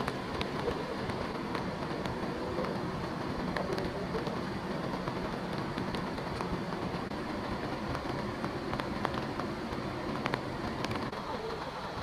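Steady outdoor hiss of falling rain, with scattered drops ticking close by.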